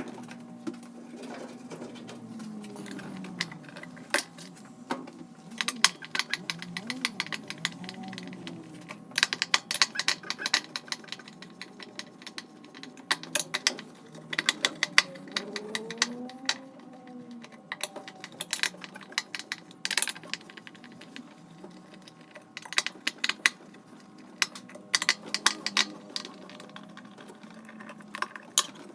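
Irregular metal clicks, clacks and clinks of hand tools and parts as a top-loading washing machine is taken apart, coming in clusters with short pauses between.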